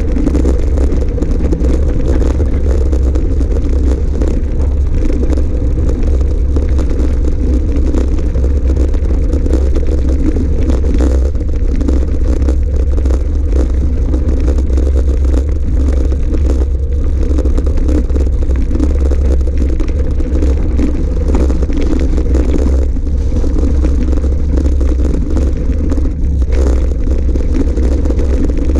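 Steady rumble of wind on the microphone and tyre noise from an electric mountain bike rolling over a gravel track, with scattered brief knocks and rattles.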